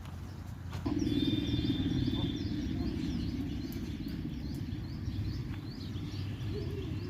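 A bird chirping over and over, about two short chirps a second, over a steady low rumble that comes in about a second in.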